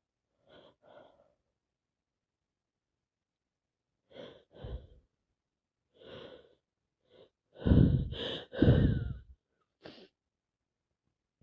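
A woman with a cold breathing in short, catchy breaths and sniffing, then two loud sneezes in quick succession near the end, followed by a short sharp sniff.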